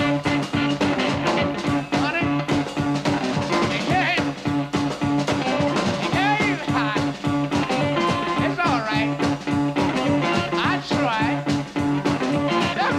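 Live electric blues band playing an upbeat, funky groove: drums keeping a steady beat, a repeating bass line, and electric guitar playing bent notes.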